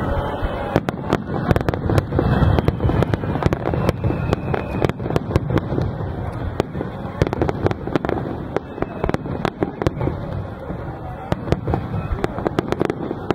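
Aerial firework shells bursting in a rapid barrage, a dense stream of bangs and crackles over a continuous low rumble.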